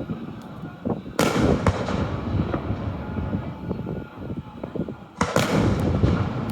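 Aerial fireworks display: two loud shell bursts, about a second in and about four seconds later, each trailing off in a long rolling rumble, with smaller pops and crackling between them.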